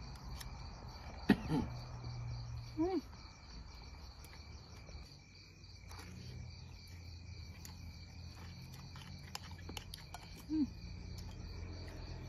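Steady chorus of crickets chirring, with a few short low hums of a voice about a second, three seconds and ten and a half seconds in.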